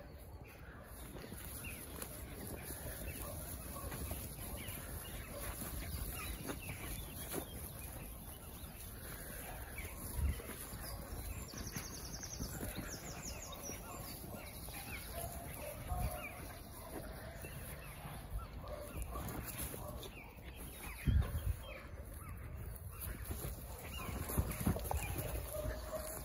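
Steady outdoor noise with faint animal calls and a few dull thumps, about ten, sixteen and twenty-one seconds in.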